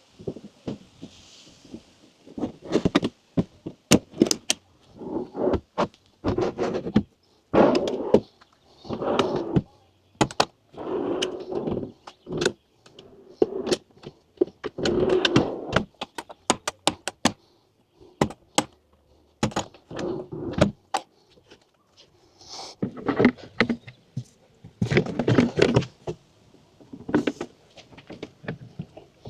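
Repeated knocks, thunks and clicks with short scraping or rubbing bursts in between, from camper platform kit parts being handled and fitted in an SUV's cargo area.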